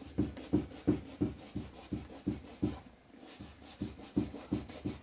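Cloth rubbing homemade dubbin wax into a leather boot in quick back-and-forth strokes, about three a second, with a brief pause near the middle.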